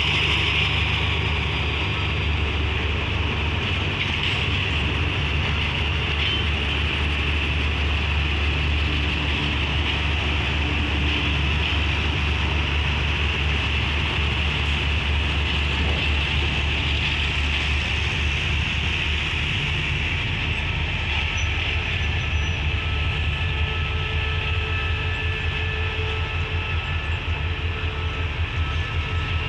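A train of passenger coaches rolling slowly past, with wheel-on-rail rumble and hiss over a steady low diesel hum. The rumble takes on a faint regular beat near the end.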